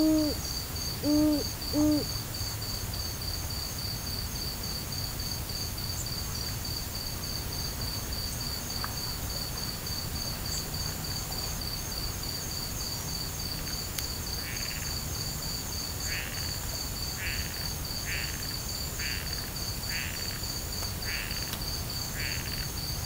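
Night field recording of an owl giving a few quick hoots at the start over a steady, fast-pulsing chorus of crickets. From about the middle on, a frog joins with a run of noisy croaks about once a second.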